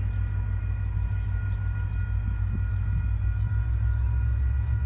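Diesel locomotive hauling passenger carriages approaching, its engine a steady low rumble that grows slightly louder, with a faint steady whine above it.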